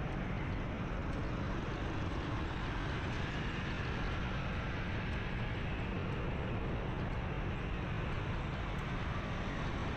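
Steady road and engine noise heard from a moving motorbike in city traffic: a constant low rumble with no breaks.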